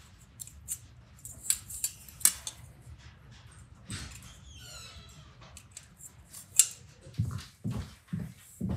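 A metal scriber scratching a mark into a red metal ring held against a small steel square, with sharp small clicks and scrapes and one short squeaky scratch about halfway through. Near the end come duller knocks and handling of the ring.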